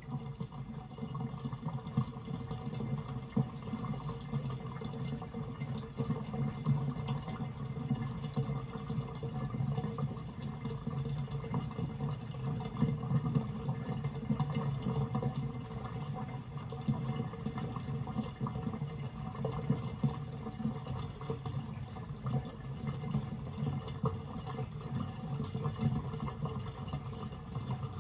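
Water draining steadily out of a stainless steel kitchen sink through a fully opened twist-and-seal basket strainer: a continuous rush of water down the drain, flowing freely with no sign of the strainer closing.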